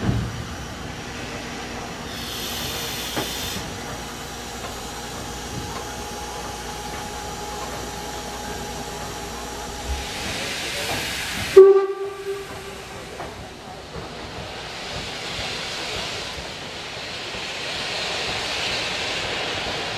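Sound effects from the onboard sound module of an O-scale model German steam tank locomotive standing still: steam hissing in bursts about 2 s and 10 s in. About halfway through comes a sudden, loud, short toot, then a long, swelling steam hiss.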